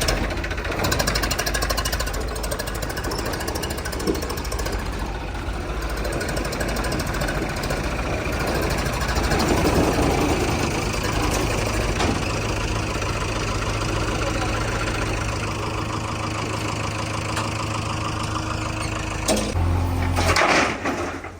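Diesel engine of a JCB backhoe loader running steadily and loudly, with a knocking diesel clatter; it swells briefly and then drops away sharply near the end.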